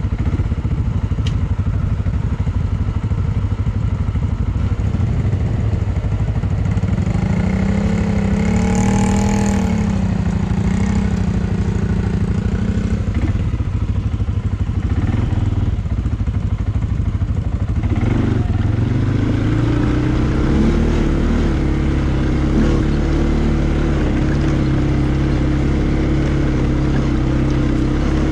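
CFMoto ATV engine running under way, its pitch rising and falling with the throttle; about two thirds of the way through it speeds up and then holds a steady pitch.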